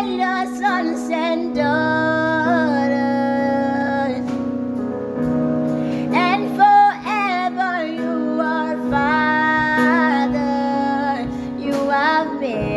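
Slow worship song: a woman singing held, wavering phrases over sustained keyboard chords.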